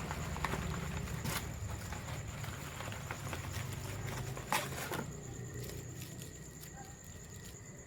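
Bawang firecrackers being handled and set down as they are counted: light pattering taps and rustles, with a couple of sharper clicks, over a low rumble that fades.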